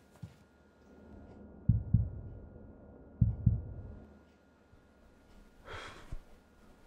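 Deep double thumps like a heartbeat, two beats about a second and a half apart, each a quick pair. Near the end comes a breathy sigh.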